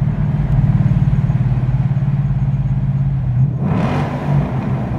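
Ford Mustang GT's 5.0-litre V8 running steadily under way through a road tunnel, heard from inside the cabin. A brief rush of noise comes about three and a half seconds in.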